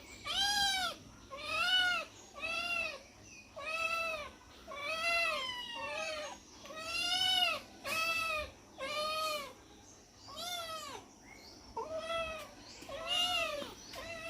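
Domestic cat meowing over and over: about a dozen short meows, each rising and then falling in pitch, roughly one a second.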